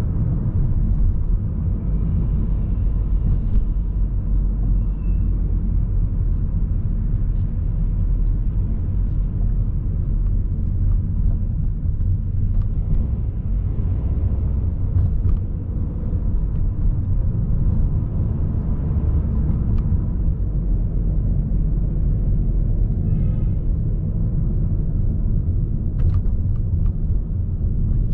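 Steady low rumble of a car driving through city traffic: engine and tyre noise.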